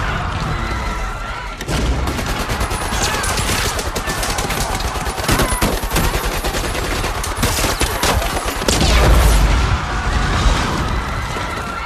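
Sustained automatic submachine-gun fire: a long run of rapid shots with brief breaks, and a heavy low rumble about nine seconds in.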